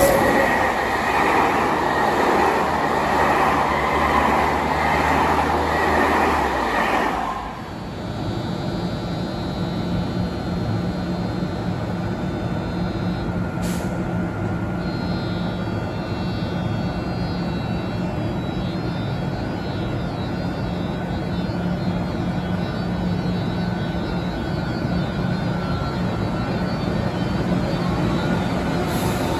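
Loud rail noise with a low droning note for about the first seven seconds, stopping suddenly. Then the steady hum of an SNCF BB 26000 electric locomotive standing at the platform, its cooling fans running, with a single click about halfway.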